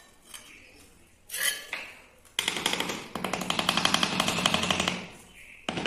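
Mallet rapidly tapping a vitrified tile strip down into a wet mortar bed, bedding it level: a fast, even run of light taps, many a second, lasting about two and a half seconds. A single knock comes about a second and a half in.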